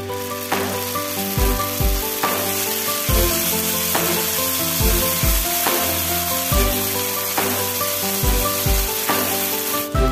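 Blended chili paste sizzling in hot oil with chopped garlic in a wok, stirred with a silicone spatula. The sizzle starts at once and cuts off just before the end. Background music with a steady beat plays underneath.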